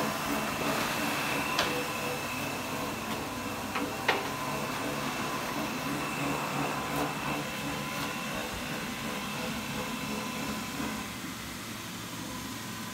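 Steady hum of factory machinery with a thin high whine over it, and a few sharp clicks about one and a half and four seconds in; it gets slightly quieter near the end.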